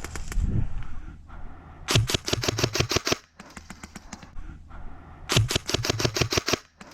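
Airsoft guns firing rapid full-auto bursts at about ten shots a second: a loud burst about two seconds in, a fainter one right after it, and another loud burst about halfway through.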